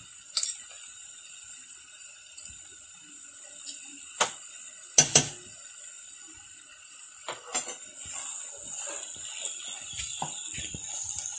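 Wooden spatula in a non-stick pan: a few sharp knocks against the pan, then stirring and scraping through thick mashed-potato filling from about seven seconds in, with many small irregular scrapes and taps.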